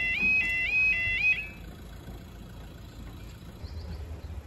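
Level crossing audible warning alarm, a two-tone warbling yodel repeating about twice a second as the barriers lower for an approaching train. It cuts off suddenly about a second in, leaving a faint low rumble from near the end.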